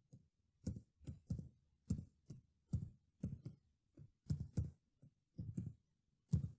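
Computer keyboard keys pressed one at a time as a password is typed: about fifteen separate keystrokes, each a click with a low thud, at an uneven pace of two or three a second.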